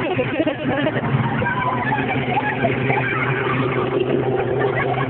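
A steady low engine-like hum, with people's voices talking over it.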